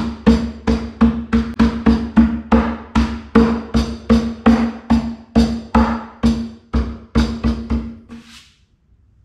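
A fist tapping a large dovetailed pine board down onto its pins, about three knocks a second, each with a low ring from the hollow wooden box. The joint goes together easily; the knocks grow softer and stop shortly before the end as it seats.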